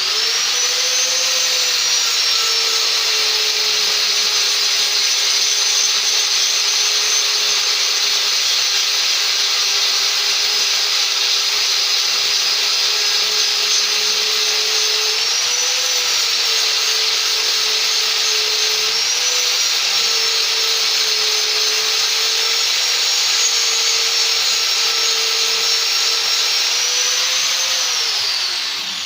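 Electric power tool motor running under load with a steady high whine. The pitch rises briefly a few times as the load eases, then winds down near the end when it is switched off.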